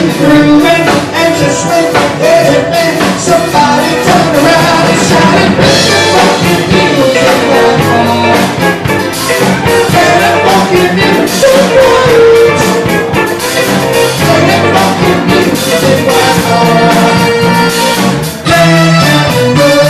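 Loud live band music: a man singing into a microphone over a drum kit and band backing.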